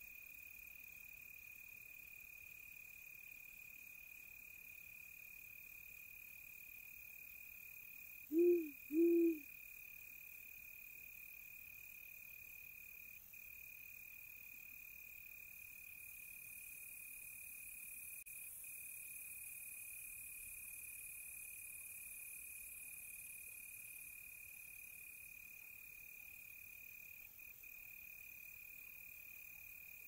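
Crickets trilling in one steady high tone, with two short owl hoots close together about eight seconds in.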